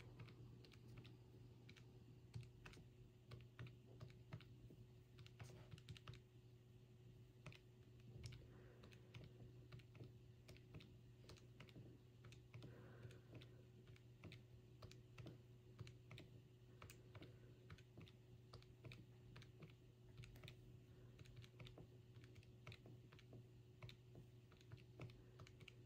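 Faint, irregular tapping of calculator keys, a few presses a second with short pauses, over a steady low hum.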